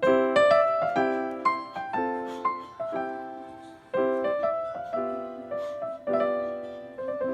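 Background music: a gentle piano piece, chords struck about once a second and left to ring and fade.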